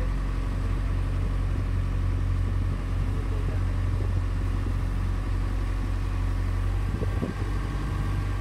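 Glass-bottom tour boat's engine running steadily under way, a low, even drone.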